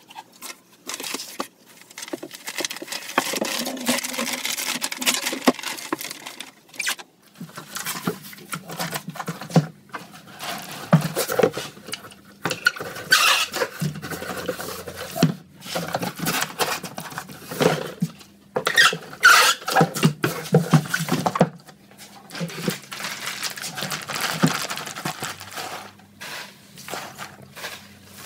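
Packaging being handled on a workbench: wrapping paper and plastic rustling and crinkling, a cardboard box knocked and slid about, and polystyrene packing peanuts rattling. It comes in irregular bursts with short pauses and a few sharp knocks.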